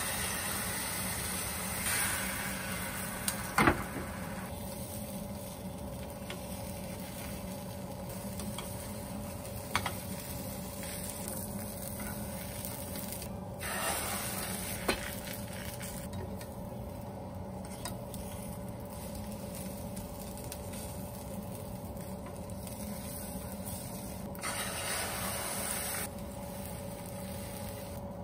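Beaten egg sizzling in a nonstick frying pan while a Korean rolled omelette (gyeran-mari) cooks; the sizzle swells louder each time fresh egg is poured into the hot pan. A few sharp knocks sound during it.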